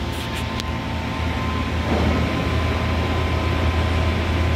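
Welding machine running with a steady low hum, growing a little louder about two seconds in.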